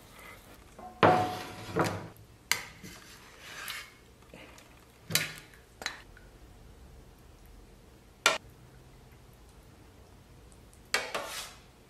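Dishes and metal kitchenware being handled and set down: about eight separate clinks and knocks a second or more apart. The first and loudest has a short ringing tone, and there is a slightly longer clatter near the end.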